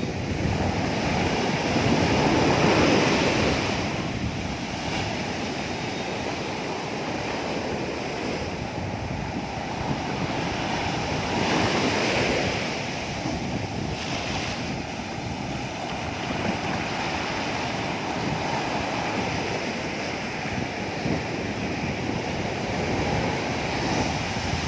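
Ocean surf breaking on the beach, a steady wash of waves that swells louder twice, with wind buffeting the microphone.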